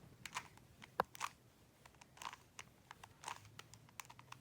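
Plastic Rubik's Cube layers being twisted by hand: irregular clicks and short scraping turns, with one sharp click about a second in.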